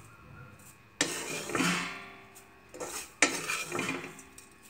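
Wooden spatula scraping roasted dried fenugreek leaves across a nonstick kadhai into a glass bowl, with a rattle of the utensils. It comes in two strokes, about a second in and again past three seconds, each starting sharply and trailing off.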